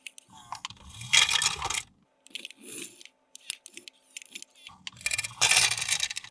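Small hard plastic toy parts being handled, with quick clicks and rattles and two brief scraping rushes, one about a second in and one near the end.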